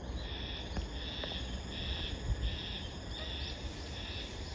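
A high-pitched buzzing animal call repeated in short bursts about every 0.7 seconds, with a few short rising chirps near the end over a low outdoor rumble.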